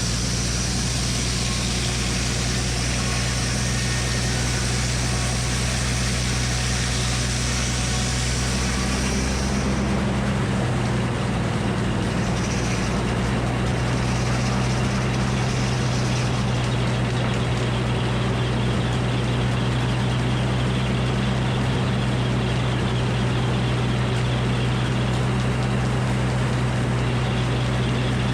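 Frick circular sawmill running, its engine holding a steady low drone. A higher-pitched noise over the engine stops about ten seconds in, and the engine keeps running evenly.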